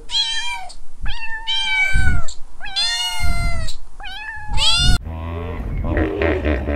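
A kitten meowing, about six high-pitched meows in quick succession, each bending in pitch. About five seconds in they give way to a low, pulsing rumble.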